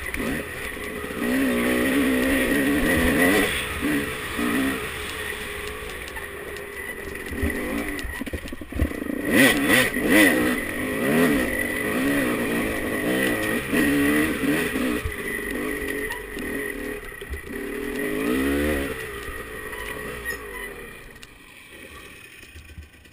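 Dirt bike engine being ridden over rough trail, its pitch rising and falling with the throttle. A burst of clattering comes about ten seconds in, and the engine falls away near the end as the bike slows.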